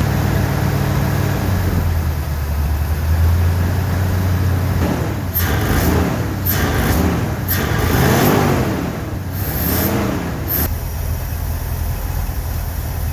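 1969 Ford F100 truck engine running at idle, then revved in about five quick blips of the throttle in the middle before settling back to idle. The ignition timing has been retarded to about 8 degrees and the carburettor is due for a rebuild.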